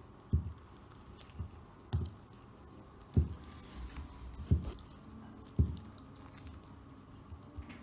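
Toy poodle gnawing a meaty bear bone, the bone knocking dully against the wooden floor at irregular intervals, about once a second.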